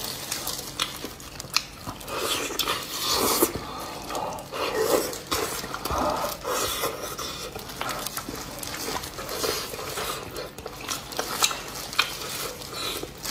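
Close-miked wet tearing and squelching as gloved hands pull apart a braised beef hoof in sauce, with irregular clicks, chewing and mouth sounds.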